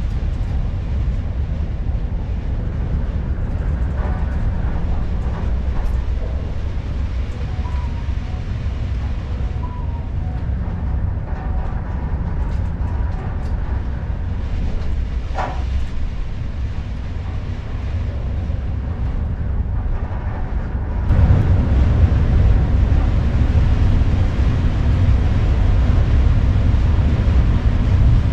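Storm wind and rough sea around a cruise ship at sea, a steady low rumble that grows louder about three quarters of the way through.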